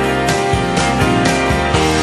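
Background music: a guitar-led song with a steady beat.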